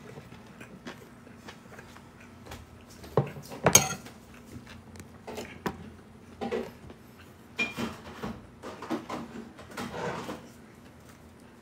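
Plates and cutlery being handled and set down on a table: a series of knocks and clinks, the loudest about three and a half seconds in and one short ringing clink near the middle. Near the end comes a short squelching squirt of ketchup from a squeeze bottle.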